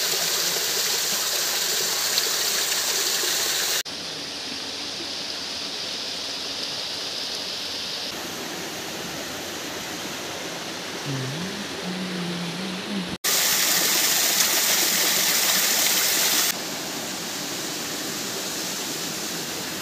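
Water of a small rocky forest stream rushing and splashing over boulders in little waterfalls: a steady rush. It is heard in several clips that cut abruptly into one another, about 4 s, 13 s and 16 s in, the rush louder and brighter in some clips than in others.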